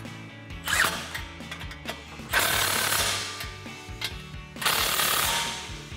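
Cordless impact driver with a 13 mm socket running in three bursts, the longest about a second, tightening the nut of an exhaust hanger clamp. Background music plays underneath.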